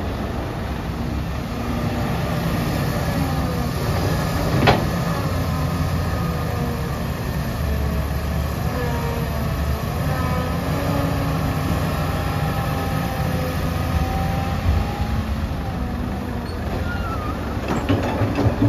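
Komatsu PC150-5 excavator's diesel engine running steadily under working load, with a faint wavering whine above the engine drone. A single sharp knock comes a little under five seconds in, and a few lighter knocks near the end.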